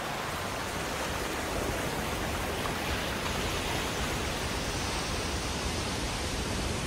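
Surf breaking and foaming over rocks: a steady rush of white water.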